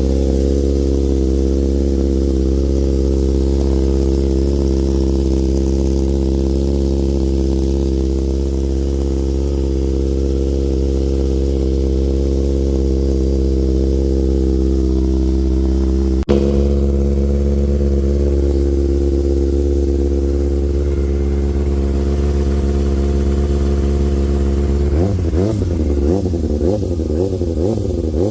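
2009 Kawasaki ZX-6R's inline-four engine idling steadily as it warms up after an oil change. Near the end its pitch starts to waver up and down.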